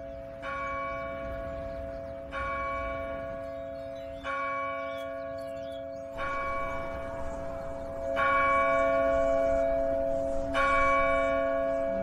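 A large bell tolling slowly, six strokes about two seconds apart. Each stroke rings on into the next over a steady low hum.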